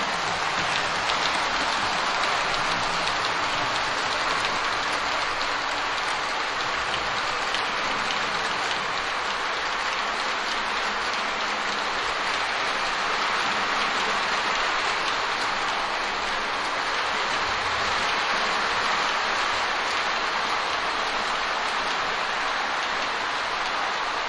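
0-gauge model trains rolling along the layout's track, a steady rushing noise with no pauses.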